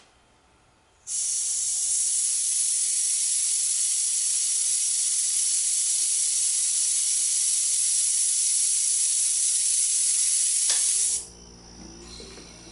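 Compressed air hissing steadily out of the tank's outlet valve for about ten seconds, bleeding down the tank pressure, then cutting off suddenly. Near the end, a low hum starts as the refrigerator compressor and its cooling fan switch on.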